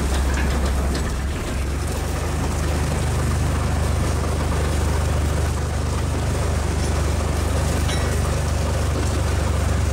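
Fishing boat's engine running steadily, a low drone.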